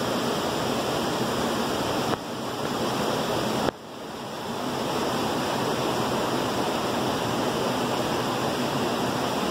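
A creek rushes and splashes over boulders at a small canyon waterfall, making a steady rushing noise. The level dips suddenly about two seconds in, and again near four seconds, where it drops sharply and swells back.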